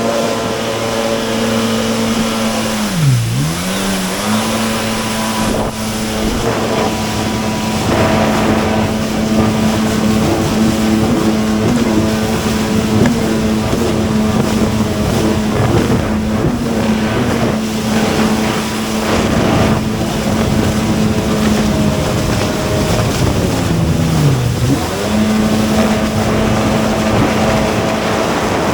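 Motorized watercraft engine running at steady high revs over wind and water noise. The throttle is eased off and opened up again twice, the engine note dropping and rising: once about three seconds in and once near the end.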